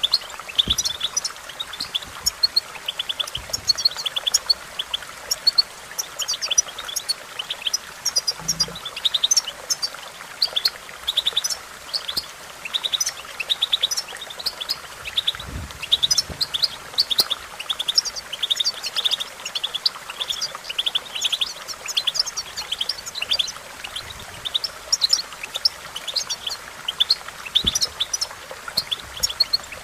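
European goldfinch twittering song: rapid, high, clipped chirps running on without a break. A few soft low thumps come now and then, over a faint steady hiss.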